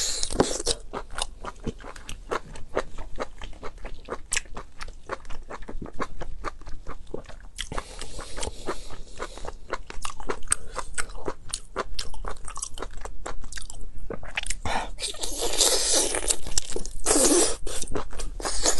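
Close-miked chewing of cooked octopus: a dense run of wet smacking clicks from the mouth. There are louder, noisier stretches a little past halfway and again near the end.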